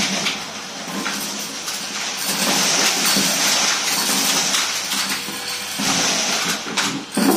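Vacuum cleaner running with its metal wand sucking up paper confetti and small debris from a carpet, with a steady suction hiss and crunchy crackling and rattling as the bits go up the metal tube. The sound dips briefly near the end and then surges sharply.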